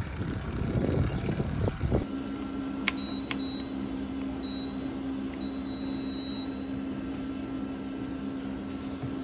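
Wind rumble on the microphone while cycling, then a treadmill's steady electric hum from about two seconds in, with a couple of clicks and short high electronic beeps from its console as the start button is pressed.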